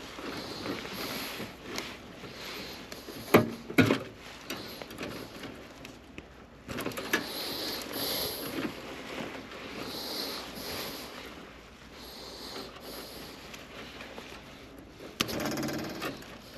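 Hands working on wiring inside an air handler cabinet: irregular rustling and handling noise, with two sharp clicks about three and a half seconds in and a short louder rustle near the end.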